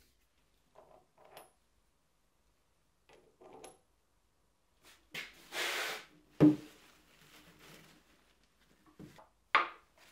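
Handling sounds on a wooden workbench: a few faint clicks, then a plastic jug scraped and set down with a single solid knock about six and a half seconds in. A short rustle of a cloth rag follows near the end.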